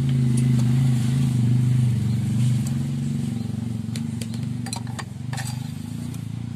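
A small engine idling steadily, getting somewhat quieter about three seconds in, with a few light metal clicks of a hand tool against the engine case near the end.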